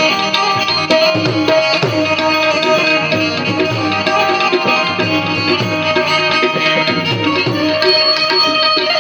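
Tabla and Indian banjo playing an instrumental passage of a devotional bhajan. The banjo plays a twangy plucked melody over a steady tabla rhythm, whose deep bass strokes slide in pitch.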